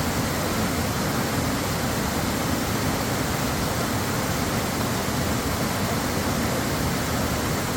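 Water of Bamboo Lake Waterfall pouring down, a steady, even rush with no change in level.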